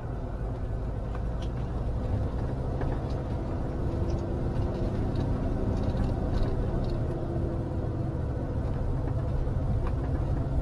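Motorhome driving at steady speed, heard from inside the cab: an even low rumble of engine and tyre noise.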